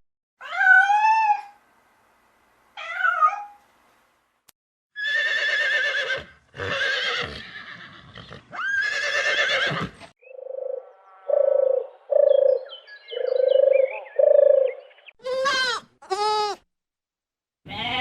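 A series of separate animal calls, each cut off into silence: a few short pitched cries, then three longer rougher calls, then five low, evenly spaced hoots, and two high cries near the end.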